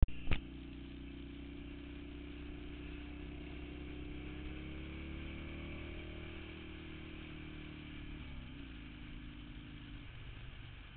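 A vehicle engine running steadily, its pitch rising a little in the middle and dropping about eight seconds in. A sharp click sounds just after the start.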